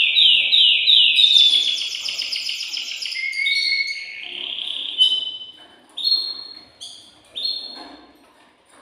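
Excited male canary singing: a run of repeated falling notes, then a fast rolling trill, then shorter separate notes that thin out and fade near the end.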